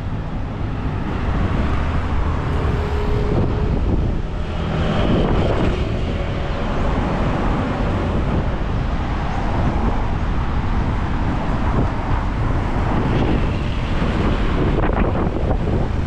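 City street traffic with vehicles passing continuously, under a steady low rumble of wind on the microphone.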